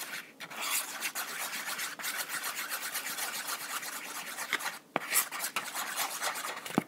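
Spoon stirring white glue and soap in a bowl: a fast, continuous rasping scrape against the bowl, with a brief pause about five seconds in.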